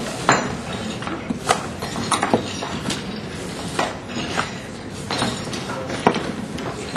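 Sharp, irregularly spaced clicks of chess pieces being set down on the board and chess clock buttons being pressed during fast blitz play, about seven in all, over steady room noise.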